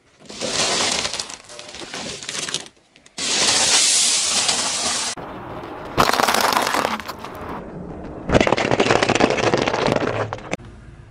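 A car tyre rolling over and crushing things on asphalt, first a balloon packed with small coated candies, then a pile of dry pasta shells, which crunch and crackle. The crunching comes in four separate stretches with short breaks between them.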